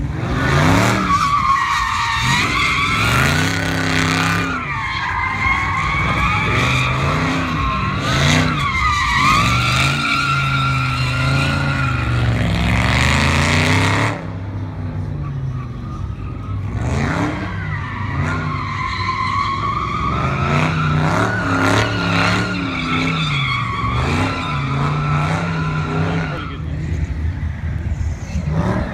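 Dodge V8 muscle car being driven hard through drifts: the engine revs up and down again and again while the tires squeal in long, wavering tones. The level drops suddenly about halfway through, then the revving and squealing carry on.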